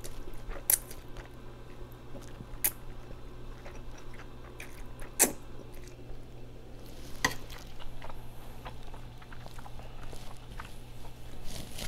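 Close-miked eating of noodles: slurping and chewing, with several sharp wet clicks spread through it, the loudest about five seconds in.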